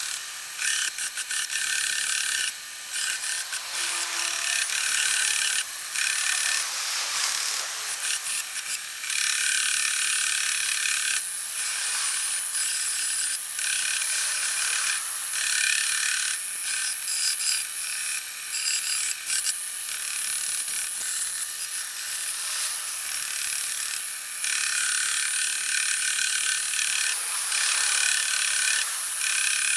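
Bench-top belt and disc sander running, its belt sanding the face of a pallet board: a steady high whine over a rasping hiss that dips briefly many times as the board shifts on the belt.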